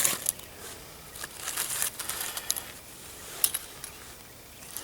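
Short scrapes and clicks at irregular intervals from hands working to light a small fire over cotton-ball tinder and small sticks. The sharpest is right at the start, with a longer scratchy stretch around the middle.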